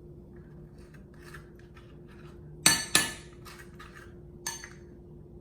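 A spoon scooping avocado flesh from its skin with soft scraping, then clinking sharply on a bowl twice in quick succession, and once more, lighter, about a second and a half later.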